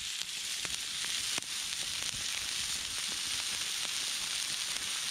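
Marinated beef sizzling in a Muurikka griddle pan over a campfire: a steady frying hiss with scattered pops.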